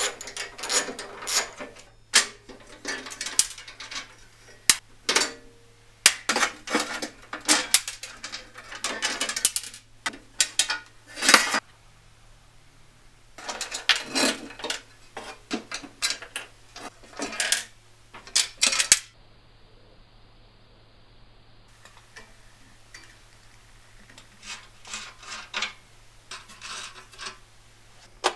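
Socket ratchet clicking and loose metal bolts and parts clinking while an old Enlon 16-inch bandsaw is unbolted, in irregular bursts with short pauses.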